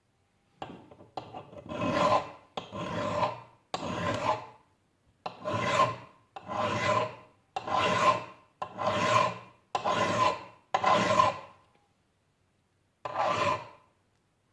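A metal file drawn in long, even strokes across the steel of an axe head, about ten strokes in a row, then a pause and one more near the end. The file is squaring the axe's spine so that it will scrape sparks from a ferrorod.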